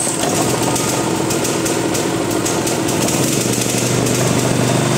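Portable 3500 gasoline generator engine running, just pull-started and noisy, with its note growing steadier a few seconds in.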